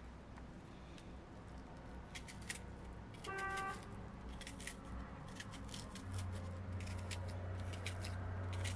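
Kitchen knife cutting through a raw onion held in the hand, a series of short crisp cuts. About a third of the way in a brief high-pitched tone sounds, and a low steady hum joins in past the middle.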